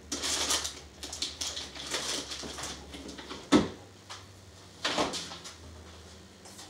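Scattered knocks and rustling from someone moving about out of sight, with a sharper knock about three and a half seconds in and another about five seconds in.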